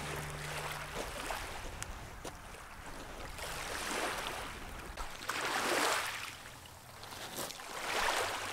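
Small waves lapping on a pebble shore, washing in and out in swells about every two seconds.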